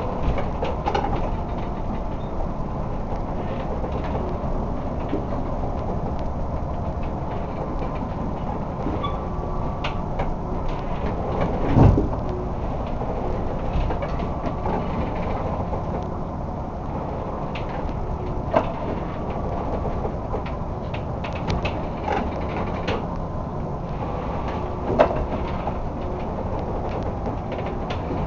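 A crab boat riding out a storm in 70–80 knot winds: a steady low rumble of engine, wind and sea, broken by three heavy thuds, the loudest a little before halfway through.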